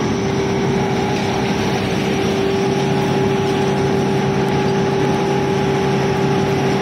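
Stone-grinding mill machinery running: a loud, steady mechanical drone with a constant hum that does not change.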